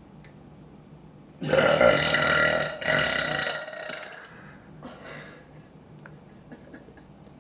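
A woman's long, loud burp starting about a second and a half in, lasting about two seconds with a brief break near the middle before it tails off.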